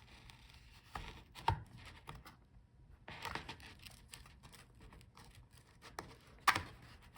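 Faint handling of a laptop LCD panel being pried up off its adhesive strips: soft scraping and peeling, with three sharp clicks, the loudest near the end.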